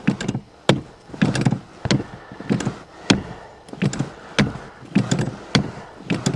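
Accelerator pedal of the carbureted Pontiac pumped repeatedly, about five times: each pump is a sharp click and then a duller clunk from the pedal and throttle linkage, roughly one pump every second and a bit. The pumping primes the cold engine with fuel because it has no choke.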